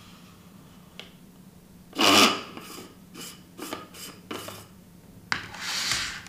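Hands handling camera lens gear: a few light clicks and a series of short scraping, rubbing noises. The loudest scrape comes about two seconds in and a longer one near the end.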